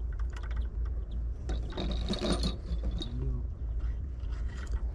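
Spinning fishing reel being wound and handled while a carp is played, giving irregular clicking and rubbing over a steady low rumble.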